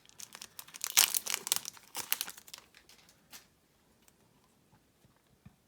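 Foil booster-pack wrapper crinkling as it is handled, a dense crackle for about two seconds starting about a second in, then a single light click and faint traces.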